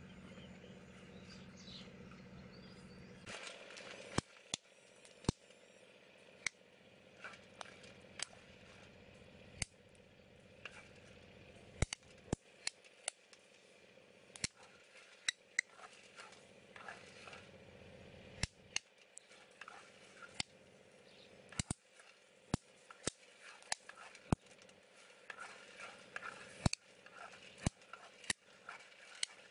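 Pumpkin seeds roasting in a clay pan over a wood fire: sharp, irregular pops and crackles, roughly one a second, starting about three seconds in after a low steady hum. Near the end there is a denser rustle as a stick stirs the seeds.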